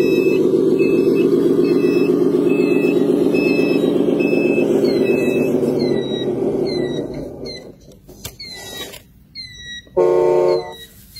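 Radio-controlled dump truck's electric drive running with a steady, pitched gear whine as it drives through sand, dying away about seven seconds in once the truck stops. About a second before the end comes a short, loud toot, like a horn.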